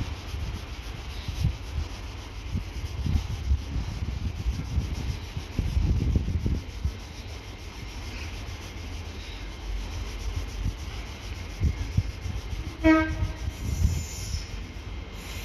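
Train passing with a low, uneven rumble, and a very short horn toot near the end.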